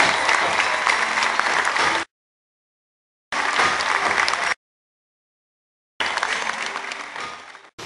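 Theatre audience applauding and clapping, cutting out twice to dead silence and fading away near the end.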